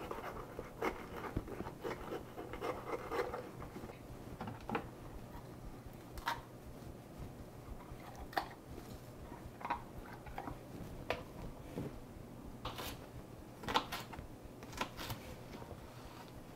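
Kitchen knife cutting raw peppers on a plastic cutting board: faint crunches of the blade through the flesh and irregular sharp taps of the knife on the board, a little louder near the end.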